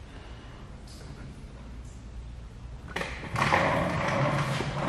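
A hissing, rustling noise with a few light knocks, starting about three seconds in, from hands-on work with wet paint protection film on a steel truck bumper.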